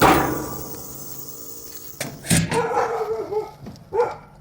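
A loud bang at the start that rings out and fades over about a second, followed by a dog barking a few times and whining in between.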